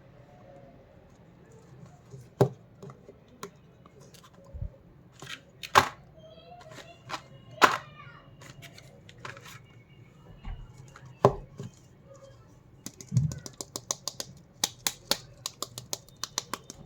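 Candy packaging being handled and opened: scattered sharp crinkles and clicks, then a quick run of small clicks from about three-quarters of the way through.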